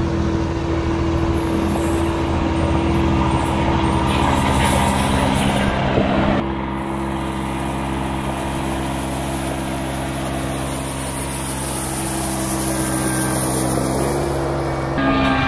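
Compact John Deere tractor with a front loader, its engine running steadily at a constant speed.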